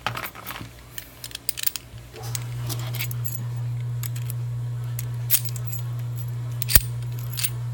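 Metal clicks and light jingling from an Abus Titalium 90RK/50 padlock and its key being handled. About two seconds in a steady low hum starts and stays, with a few more sharp clicks over it.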